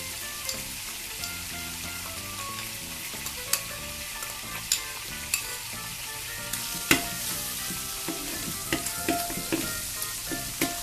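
Pounded garlic and pepper sizzling in hot oil with pork in a large metal wok, stirred with a spatula that scrapes and taps against the wok, the loudest tap about seven seconds in.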